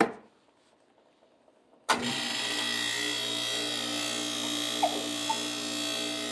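An old Frigidaire dishwasher's motor switches on suddenly about two seconds in and runs with a steady, even hum. No water is coming in. With the unit's age and corrosion, the sound is taken as a sign that a new dishwasher is needed.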